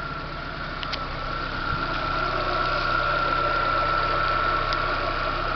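Chevrolet Corsa Classic engine idling steadily, with a steady high tone over the hum. Its new timing-belt tensioner and water pump have cured the earlier scraping noise, and the engine is running smoothly.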